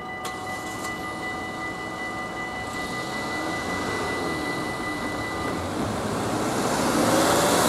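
Level-crossing warning bells ringing steadily, with a single sharp click just after the start as the barriers begin to lift. The bells stop about five and a half seconds in, while road-traffic noise from a van driving up to the crossing swells to the loudest point at the end.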